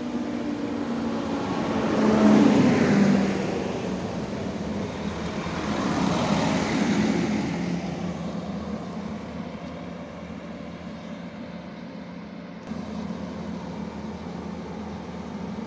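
PESA SA139 diesel multiple unit passing close by, its engine hum and running noise swelling twice, loudest about two to three seconds in and again around six to seven seconds, then dying away.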